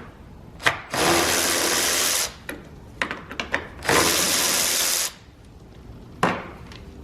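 A power tool runs in two bursts of a little over a second each, backing out the two 10 mm bolts that hold the headlight assembly, with a short click before and after.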